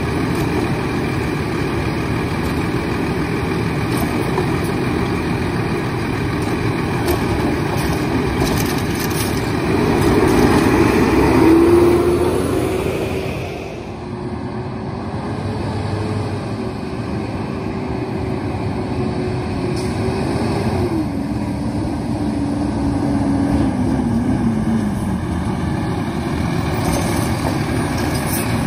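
Kenworth side-loader garbage truck's diesel engine running, louder about ten seconds in, as the truck works its curbside stops. A whine holds steady for several seconds, then steps down and falls away in pitch.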